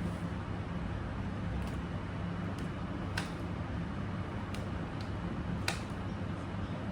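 A steady low mechanical hum with a few sharp light clicks, the clearest about three seconds in and again near the end.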